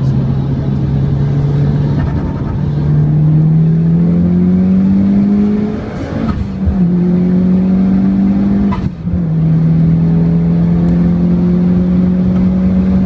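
Turbocharged four-cylinder engine of an APT Evo GT-Wagon (Mitsubishi Lancer Evolution wagon) at full throttle, heard from inside the cabin. The revs climb steadily toward about 6,000 rpm in third gear, drop with an upshift about six seconds in, dip again with a quick second upshift about nine seconds in, then pull on steadily in fifth.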